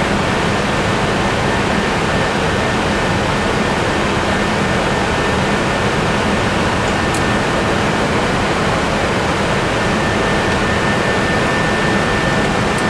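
Cockpit noise of an Airbus A320 in its climb: a steady rushing of airflow and jet engine noise at constant level, with a faint steady high whine.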